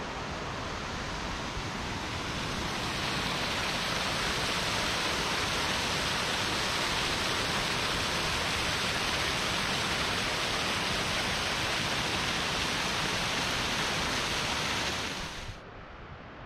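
Steady rush of flowing water, swelling a couple of seconds in and holding evenly, then cutting off abruptly near the end.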